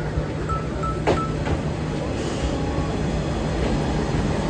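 Minami Aso Railway diesel railcar running, a steady low rumble, with a few short high beeps and a sharp click about a second in.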